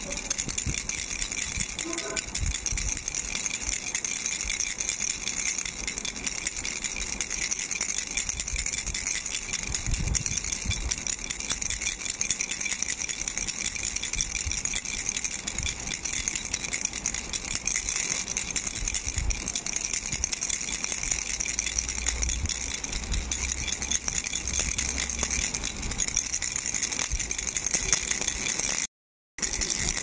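Pink plastic starfish baby rattle shaken continuously by hand, rattling in a fast, even stream of clicks. It cuts out for a moment near the end.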